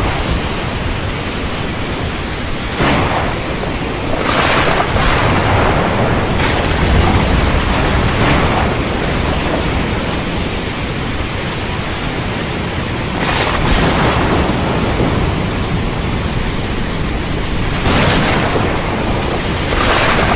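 Steady heavy rain with thunder; about six sharp claps and rumbles rise out of the rain.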